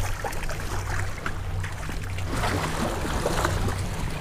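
Seawater sloshing and splashing against jetty rocks, over a steady low hum. A louder patch of splashing comes about two and a half seconds in.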